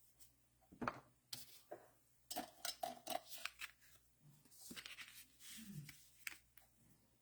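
Faint, irregular clicks and short rubbing sounds of an eraser on cardstock being used to erase pencil marks, mixed with light handling of the paper card and tools.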